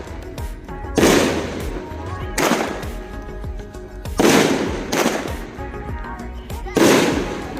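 Consumer firework cake firing: five loud booms spaced about one to two seconds apart, each followed by a rolling echo that dies away, with lighter crackling between them.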